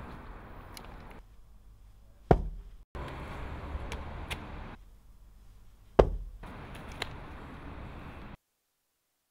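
Two hard blows landing on a person, about four seconds apart, with a few lighter knocks, over low outdoor background noise that cuts off suddenly near the end.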